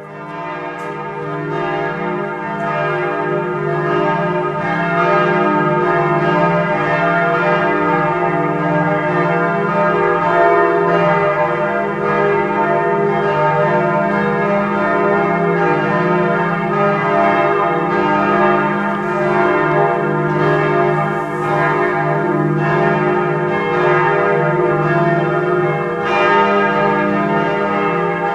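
Several large church bells swinging and ringing together in a full peal, their strokes overlapping into a steady wash of tones. The peal fades in over the first few seconds and then rings on evenly.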